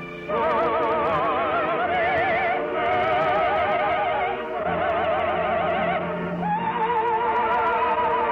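Orchestral music from a 1951 radio broadcast: a slow melody of long held notes with heavy vibrato, moving to a new note every second or two, after a brief dip in level at the start.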